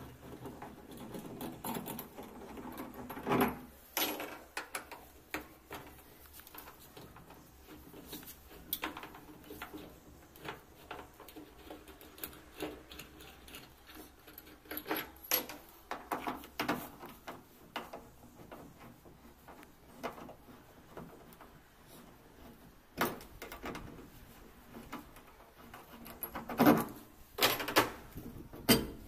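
Scattered clicks, knocks and rattles of hands handling a washing machine's plastic drain hose, clips and fittings against its steel back panel, with a cluster of louder knocks near the end.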